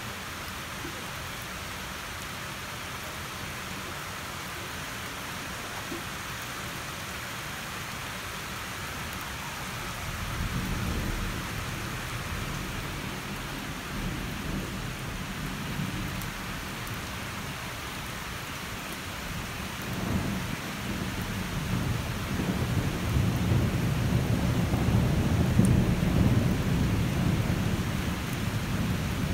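Heavy rain falling steadily, with thunder rumbling low. A short rumble comes about a third of the way in, and a longer, louder rolling rumble builds through the last third.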